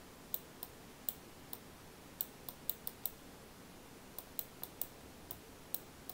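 Faint, sharp computer pointer clicks, about sixteen of them at irregular spacing, some close together in pairs, as pen strokes are drawn on a slide; they are heard over a low steady room hiss.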